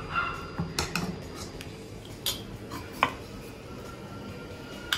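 Scattered light clinks and knocks of stainless-steel kitchenware, a steel ladle in a pot of dosa batter and a steel kadai on the cooktop, with the sharpest knocks about two and three seconds in.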